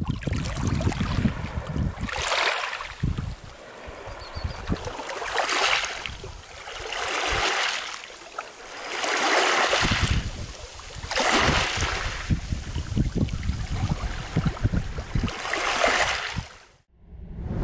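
Small waves washing in over a pebble beach, each wash swelling and fading about every three to four seconds, with wind buffeting the microphone. The sound cuts off shortly before the end.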